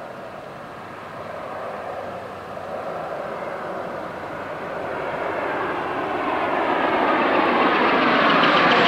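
A V-22 Osprey tiltrotor on approach to land, its rotors and turboshaft engines growing steadily louder as it comes closer.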